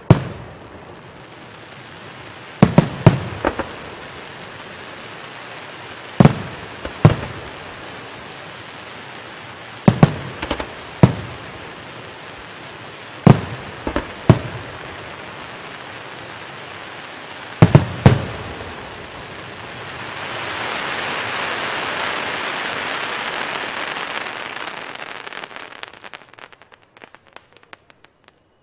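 Aerial firework shells bursting overhead: ten booms in five pairs, a pair every three to four seconds, each echoing briefly. Near the end a long hiss swells and fades over about six seconds, then dies away in scattered faint pops.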